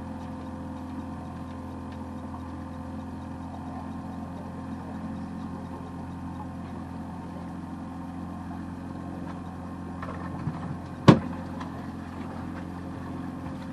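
Boat motor running steadily at low speed, with one sharp knock about eleven seconds in.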